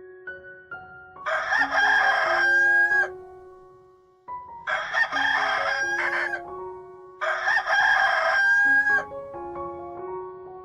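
Rooster crowing three times, each crow about two seconds long and ending on a held note, over gentle background music.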